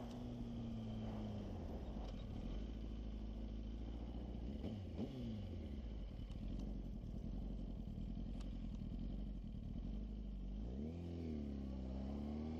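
Sport motorcycle engine running under the rider. Its pitch drops about a second and a half in and holds steady, then near the end it dips and climbs again as the bike goes through a turn.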